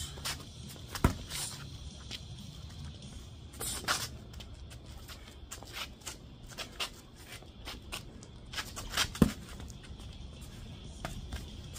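Striking sparring: gloved strikes and kicks landing on gloves and shin guards amid quick scuffing footwork on paving stones, with two heavier thuds about a second in and about nine seconds in.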